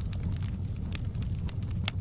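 Burning logs crackling in a fireplace: a steady low rumble of flame with scattered sharp pops and snaps, the loudest one near the end.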